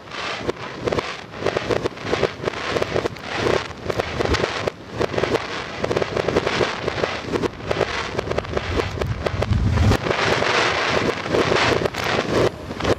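Fireworks display played backwards: a dense, continuous run of crackling and bangs from bursting shells.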